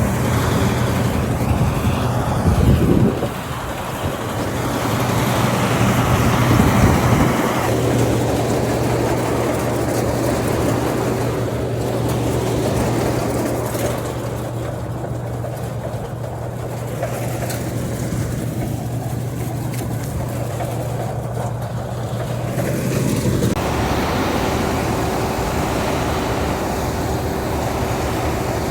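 An engine running steadily, with rougher, louder noise in the first few seconds and a shift in its note about 23 seconds in.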